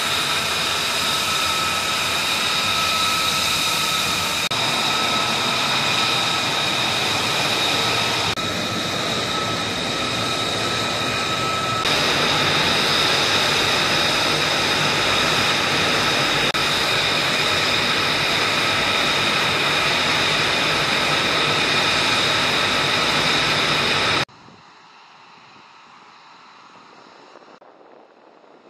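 F-35A Lightning II jet engine (Pratt & Whitney F135 turbofan) running on the ground: a loud steady rush with a high steady whine over it. About 24 s in it cuts off suddenly, leaving a much fainter wind-like background.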